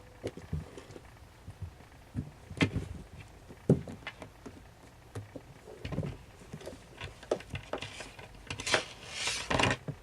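Kittens playing: scattered paw thumps, taps and knocks, with a louder scrabbling rustle near the end.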